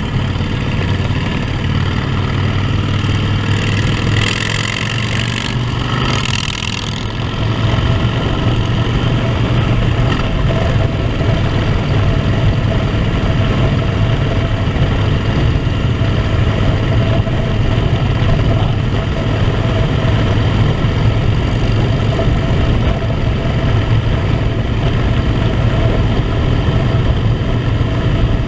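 Harley-Davidson motorcycle's V-twin engine running steadily under way, with a low, even drone and wind rushing past. A brief louder hiss comes about five seconds in.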